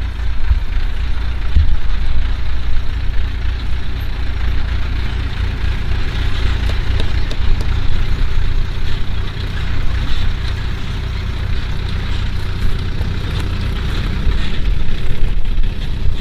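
A motor vehicle engine running steadily with a heavy low rumble.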